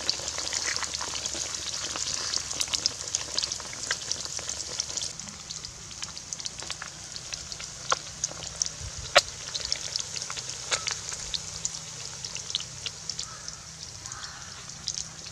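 Flour-coated fish frying in hot oil in a wok: a continuous crackling sizzle with scattered sharp pops of spitting oil, a little quieter after about five seconds.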